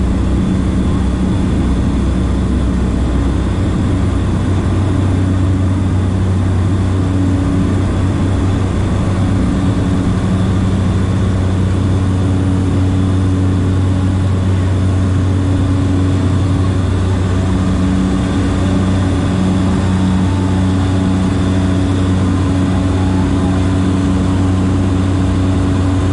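Cessna Caravan's single Pratt & Whitney PT6A turboprop at takeoff power, heard from inside the cabin as a loud, steady drone with a low propeller hum, through the takeoff roll and liftoff.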